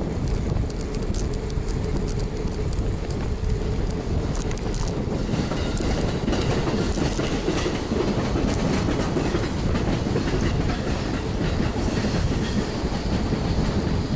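Steady rumble of a Renault Platinum Light 8 bicycle being ridden, picked up by a camera mounted on the bike: tyre and wind noise with light rattling clicks, most frequent in the first few seconds.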